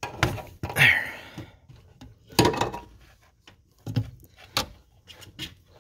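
A handful of separate clunks and knocks with some rattling as an automatic transmission shift cable and its rubber floor grommet are tugged and pushed through the truck's floor; the cable is snagged on something underneath.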